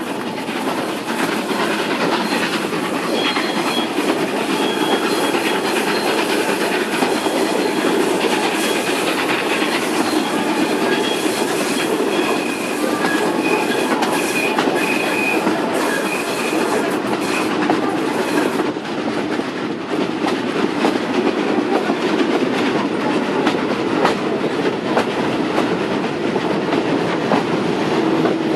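Vintage passenger carriages of a steam-hauled train running, heard from an open carriage window: a steady rumble of wheels on the rails with clickety-clack. For much of the first half the wheels also squeal in thin high tones as the train takes the curves.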